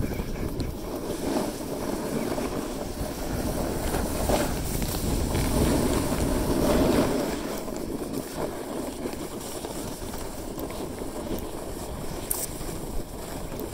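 Wind buffeting the microphone of a skier moving downhill, with skis scraping and hissing over packed, groomed snow. It grows louder about six to seven seconds in, then the low rumble eases off.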